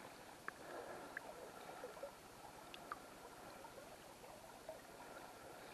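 Faint running water of a trout river's riffle, a steady low hiss, with a few small clicks.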